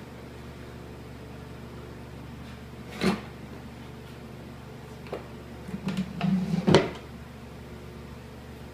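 Drawers of a scrap-MDF shop cabinet being worked: a single knock about three seconds in, then a short sliding rattle that ends in a louder bang as a drawer shuts, near the end.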